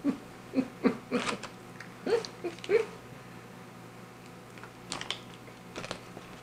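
A person chewing and biting into a thick stick of alligator jerky: a quick run of short, irregular clicks and smacks over the first three seconds, then a few fainter ones later.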